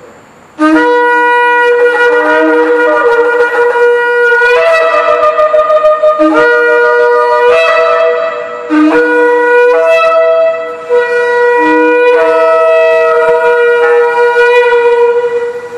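Two shofars blown together, loud, each holding long notes at a different pitch and stepping from note to note so that they sound in harmony. They come in about half a second in and break off briefly a few times.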